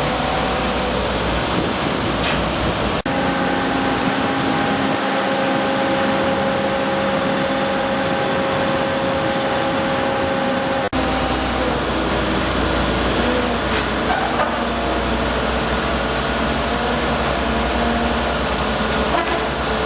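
Steady mechanical drone with a few constant hum tones running through it; it breaks off for an instant twice, about three and eleven seconds in.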